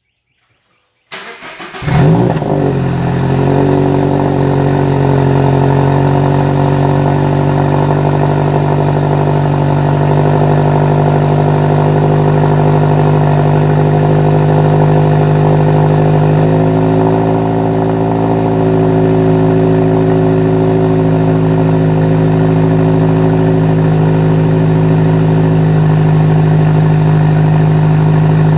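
Cold start of a 2017 Subaru BRZ's 2.0-litre flat-four through a Corsa cat-back exhaust. About a second of cranking, then the engine catches with a brief flare in revs and settles into a steady, fast cold idle, whose note steps down slightly about halfway through.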